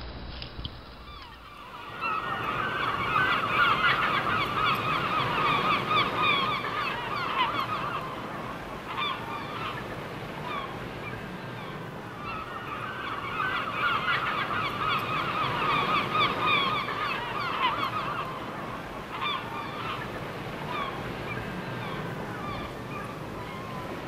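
A large flock of birds calling, many short calls overlapping into a dense chorus that swells twice and thins out near the end, over a steady background hiss.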